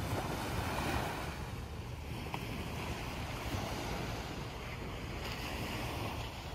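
Small waves washing steadily onto a sandy beach, with wind rumbling on the microphone.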